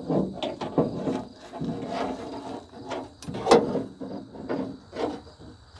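Door latch assembly being worked into a painted steel truck door through the inner-panel opening: irregular metallic clicks, knocks and scrapes as it bumps around inside the hollow door shell, with one louder knock a little past halfway.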